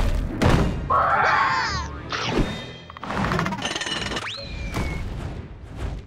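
Cartoon soundtrack music with sound-effect thuds and impacts hitting one after another, and a quick rising whistle-like glide a little after four seconds in.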